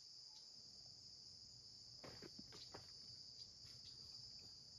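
Steady, high-pitched chorus of insects, with a few faint clicks about two seconds in.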